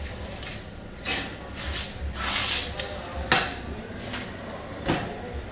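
Skin being torn and peeled off a snakehead fish by hand: several rubbing, tearing swishes, with a sharp tap a little over three seconds in and a knock near the end.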